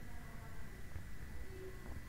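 Steady low background rumble and hiss with a faint, thin steady high tone; no distinct event stands out.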